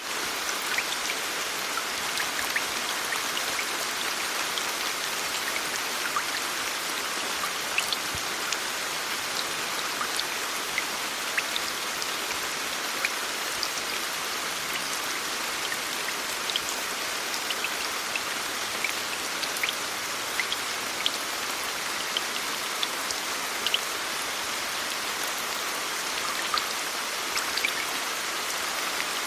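Steady rain from a sound-effects library: an even hiss of rainfall with scattered sharp drop ticks.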